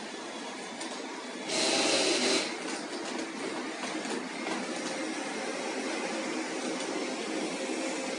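Robot vacuum cleaner running steadily, with a louder burst of noise lasting about a second, starting about a second and a half in.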